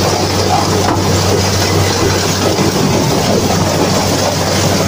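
Corn harvester running steadily as it takes in standing corn stalks: a constant low engine hum under dense mechanical noise.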